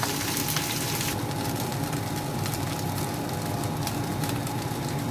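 Rice frying in hot oil in a pan: a steady sizzle with small crackles. Its hiss drops noticeably about a second in, over a low steady hum.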